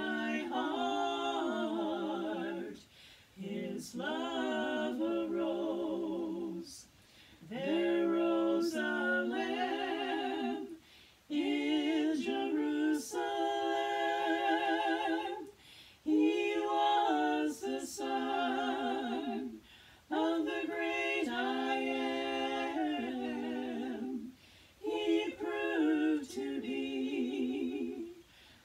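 Three women singing a gospel trio song a cappella in harmony, held notes with vibrato, in phrases separated by short breath pauses.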